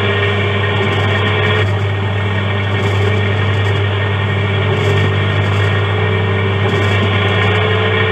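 Drive motor of an R G Mitchell Animal Rescue Ambulance coin-operated kiddie ride running while the ride moves, heard from the seat. It gives a loud, steady hum with a whine that drifts slowly in pitch.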